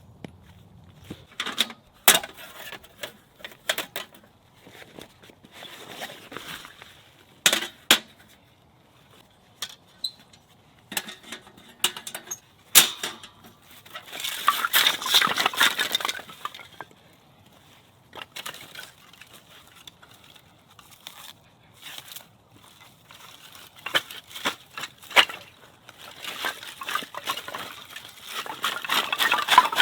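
Irregular clinks and knocks of small hard objects being handled, with two stretches of rustling and scraping, one around the middle and one near the end.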